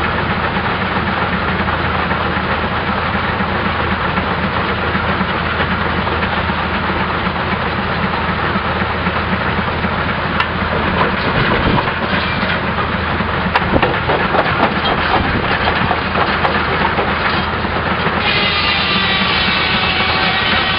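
Antique Western Wheeled Scraper Co. No. 1 Aurora rock crusher running under belt power with a steady, heavy mechanical clatter. Sharp cracks of stone breaking in it come through the middle stretch, and near the end a steady high-pitched tone joins in.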